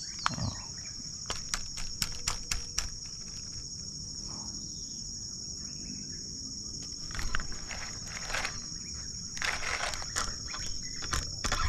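Insects keep up a steady, high-pitched chorus. Scattered sharp clicks in the first few seconds and a few short rustling noises later on come from the baitcasting reel and rod being handled.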